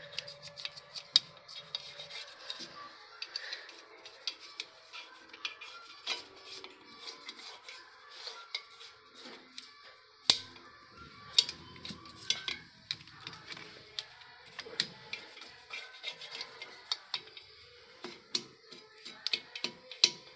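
An old toothbrush scrubbing the dusty steel brake backing plate and hub of an auto-rickshaw's rear drum brake, cleaning out brake dust: a scratchy rubbing broken by irregular sharp clicks and taps on the metal.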